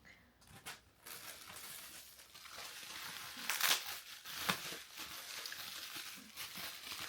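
Packaging bag crinkling as it is handled, with a few louder crackles partway through.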